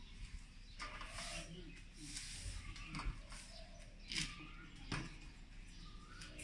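Aluminium walking frame being set down on concrete, a few sharp taps spaced a second or so apart as it is moved forward, with birds chirping.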